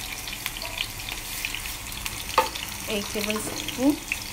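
Mustard seeds sizzling and crackling in hot oil with sliced garlic and curry leaves, a steady frying hiss with fine pops. A sharp knock comes about halfway, and a brief voice-like sound near the end.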